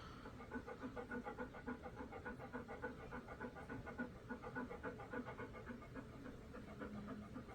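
Dog panting rapidly and evenly, about four breaths a second.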